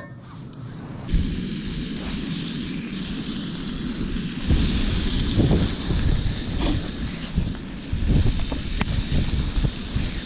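Strong wind gusting over the microphone, a rumbling buffeting that rises and falls, starting about a second in.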